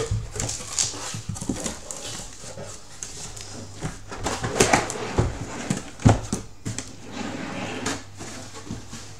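Cardboard shipping case being handled and slid off stacked shrink-wrapped boxes: a run of scrapes, rustles and knocks, with a sharp knock about six seconds in.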